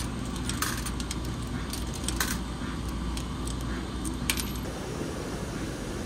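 Coins dropped one at a time into the coin slot of a coin-operated laundromat washer, each landing with a short metallic clink, about four in all, over a steady low machine hum.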